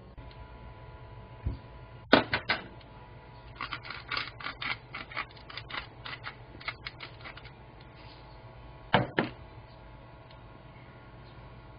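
Pepper mill being twisted, a run of quick crunchy clicks in the middle, with a few sharp knocks about two seconds in and again near the end. A steady low hum runs underneath.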